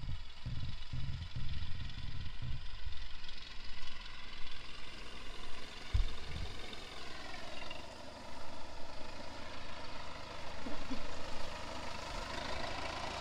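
Antique farm tractor's engine running steadily as the tractor drives slowly up. The engine note drops about seven seconds in.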